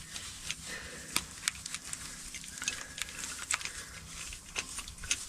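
Irregular light clicks and taps of metal as a car jack is set in place and turned with a pry bar standing in for its lost crank handle.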